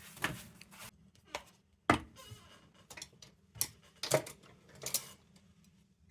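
Light clicks and knocks, about six spread unevenly over several seconds with faint rubbing between, from a steel hot-blast lantern and its parts being handled as it is treated.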